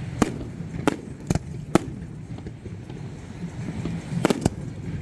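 Fireworks bursting: a run of sharp bangs, four in the first two seconds, then two close together about four seconds in, over steady low background noise.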